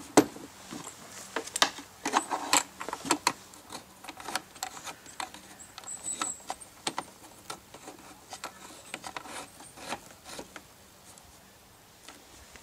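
Round metal multi-pin power plug being pushed and screwed onto the socket of a FuG 10 radio set: a run of sharp metallic clicks and scrapes, thickest in the first few seconds and thinning out toward the end.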